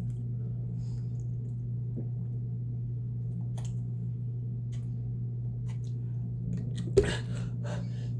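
Steady low hum, with a few faint scattered clicks, a short thump about seven seconds in, and quick breathy sounds after it.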